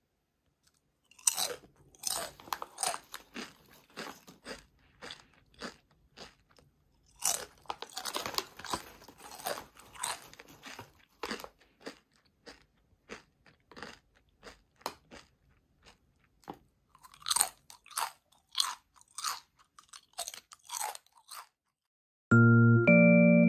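Potato chips crunching close to the microphone: several crisp bites, each followed by a run of chewing crunches. Light piano-like music starts near the end.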